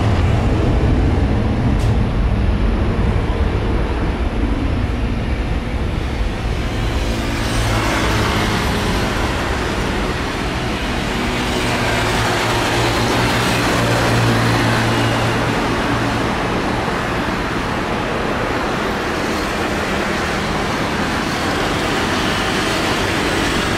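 Twin jet engines of a Boeing 737 freighter on its takeoff run: a steady low rumble, then a broad roar that swells about seven seconds in as the engines reach takeoff thrust and holds through the roll and lift-off.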